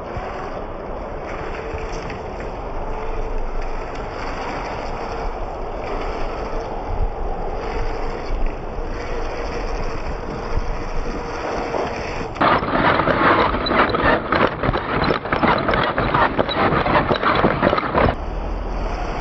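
Traxxas TRX-4 RC crawler driving over dirt: a faint steady electric-motor whine over the tyres on the ground. About twelve seconds in, the sound turns to loud close-up crunching and rattling, picked up by a camera mounted on the truck, for about six seconds before the steadier sound returns.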